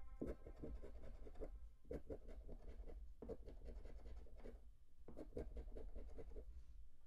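Scratch-off lottery ticket being scratched: quick back-and-forth scraping strokes rubbing off the coating, in several short bursts with brief pauses between them.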